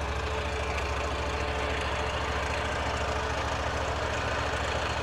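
Engine of a Toro Grandstand stand-on mower running steadily at low speed, an even rapid pulse with no change in pitch.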